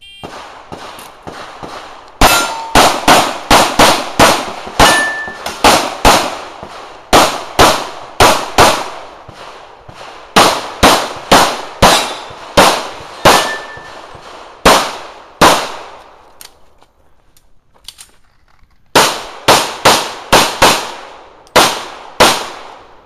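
Shot-timer start beep, then a USPSA Limited-division pistol fired in quick strings of shots, about thirty in all, broken by short pauses and one longer lull a little past the middle.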